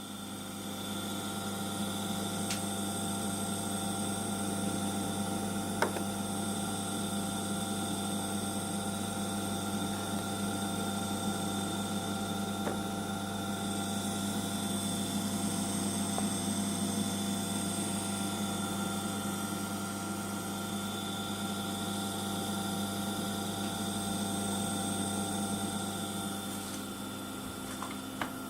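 Rinnai 167 RMF gas boiler humming steadily but not starting up, the humming fault that goes with its error 15. One sharp click comes about six seconds in.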